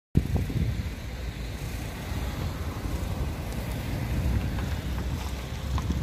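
Wind buffeting the phone's microphone: an uneven low rumble that starts suddenly and keeps fluttering in strength.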